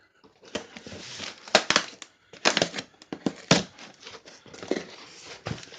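A shipping box and its packaging being torn open by hand: an irregular run of tearing, crinkling and rustling with sharp scrapes, starting about half a second in.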